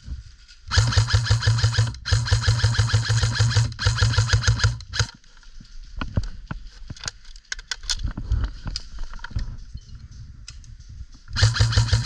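Airsoft electric rifles (AEGs) firing long full-auto bursts, a rapid motor-driven buzz lasting a second or two at a time. About five seconds in the bursts stop, leaving scattered sharp clicks and cracks. The full-auto fire starts again near the end.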